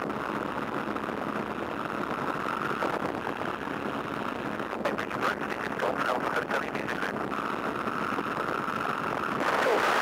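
De Havilland Tiger Moth's Gipsy Major four-cylinder engine running steadily in flight, with slipstream wind rushing past the open cockpit. It grows louder near the end.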